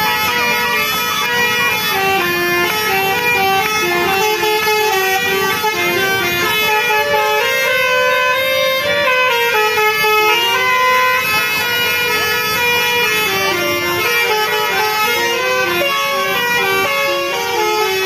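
Basuri musical air horn on a tour bus playing a telolet tune: a continuous run of stepping notes with several tones sounding together.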